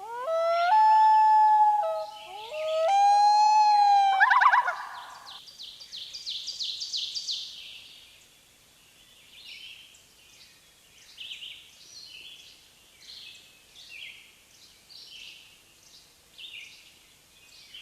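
Bird calls: two long pitched whistles that glide up and then hold, ending in a quick trill, followed by scattered short high chirps that grow fainter.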